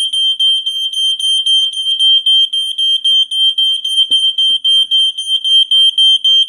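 The piezo buzzer of a 17-year-old ionization smoke detector sounding its alarm: a loud, high-pitched tone pulsing rapidly and evenly. It has been set off by smoke from burning paper, showing that the expired detector still detects smoke.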